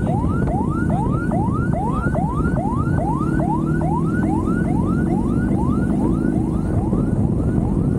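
Emergency siren on a fast yelp, each cycle a quick rising sweep, about three a second, over the low rumble of a moving motorcycle and wind; the sweeps grow fainter in the last couple of seconds.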